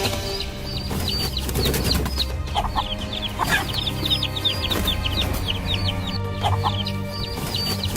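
Birds calling: a rapid, continuous series of short, high, falling chirps, with a louder, lower call breaking in about every second and a half.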